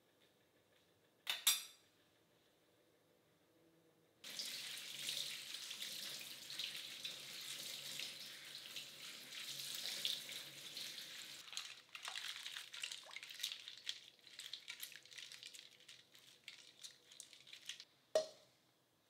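Kitchen faucet water running over a head of lettuce as it is rinsed in a stainless steel sink, starting abruptly about four seconds in and running steadily until near the end. A short knock comes about a second in, and near the end a stainless steel bowl is set down on the counter with a brief metallic ring.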